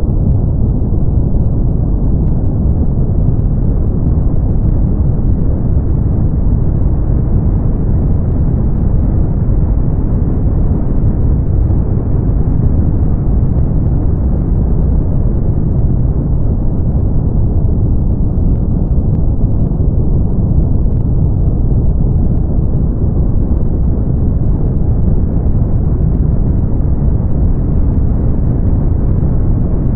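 Brown noise: a steady, deep, even hiss-like rumble, strongest in the low range and with almost nothing high up. It does not change.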